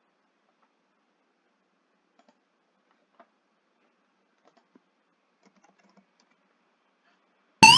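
Faint scattered computer keyboard and mouse clicks, then near the end a short, loud cartoon 'jump' sound effect from the Scratch sound library: a quick tone sweeping sharply upward in pitch.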